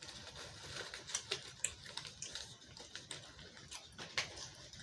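Plastic dolls being handled: faint, irregular light clicks and taps.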